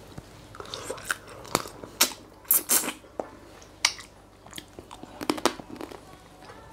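Close-up eating sounds: short sharp sucks and slurps as crab meat is drawn from blue swimmer crab shells, with chewing between them.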